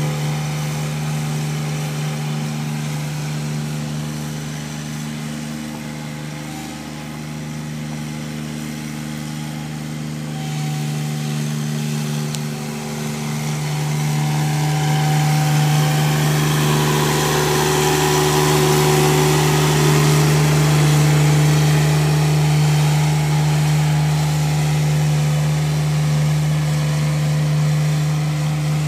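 Diesel engine of a Bomag ride-on double-drum asphalt roller running steadily as the roller works back and forth over fresh asphalt. It grows louder about halfway through as the roller comes closer.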